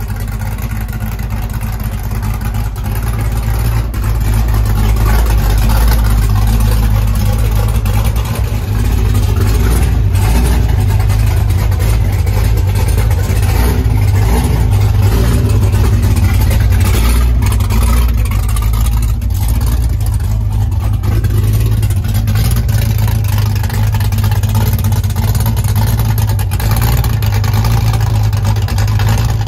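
Freshly built, cammed 6.0 L LS2 V8 of a 2006 Cadillac CTS-V running at a steady idle, with a deep, even exhaust note.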